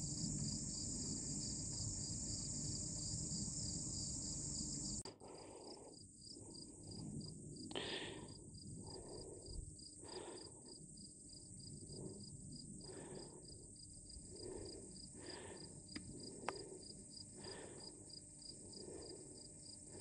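Insects chirring steadily in a constant high-pitched chorus. Low rumble cuts off about a quarter of the way in. After that, soft footsteps over dry ground come roughly once a second.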